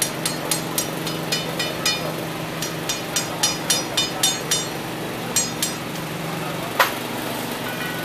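Quick, ringing metal-on-metal taps from a mechanic's tool working on a rally car with a wheel off, about seventeen of them in short runs of three or four, then one sharper clank near seven seconds in. A steady engine hum runs underneath.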